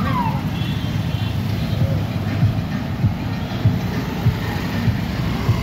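A procession of motorcycles and scooters riding past, the engines of many two-wheelers blending into a steady low rumble. Short low thumps recur through the second half.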